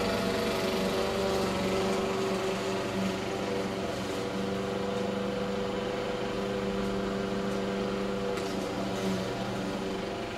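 Walk-behind gasoline lawn mower engine running steadily, slowly growing quieter as it moves away.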